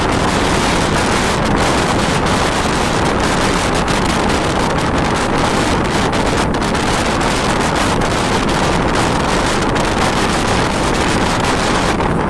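Loud, steady wind rush on the microphone from the open window of a moving bus, over the bus's road noise.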